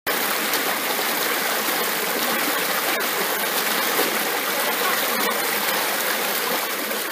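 Shallow rocky stream rushing and splashing over boulders: a steady, even rush of water.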